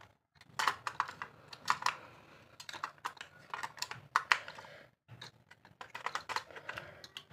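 AA batteries being pressed into a plastic toy's battery compartment and the plastic toy being handled: irregular sharp clicks and taps, with a short pause about five seconds in.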